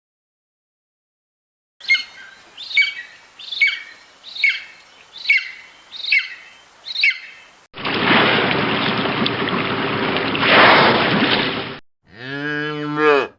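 A bird gives seven short, high, downward-sweeping calls about one a second. Then comes about four seconds of loud, harsh, hissing noise. A cow's low moo starts near the end.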